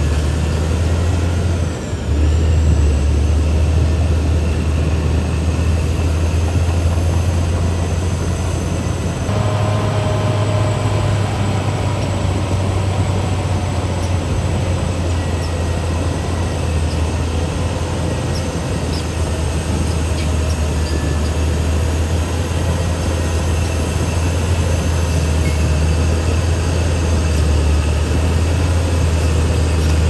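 CAT D6R XL crawler bulldozer's diesel engine running steadily under load as the blade pushes soil, with a faint higher whine joining about a third of the way in.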